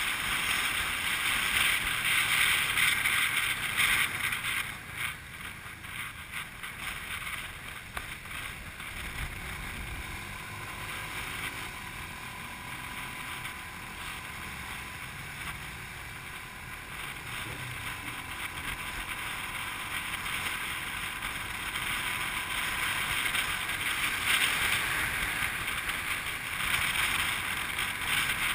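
Wind and road noise from riding pillion on a moving motorbike taxi in city traffic, a steady rush that eases for a stretch in the middle and builds again near the end. A faint steady whine sits under it in the middle.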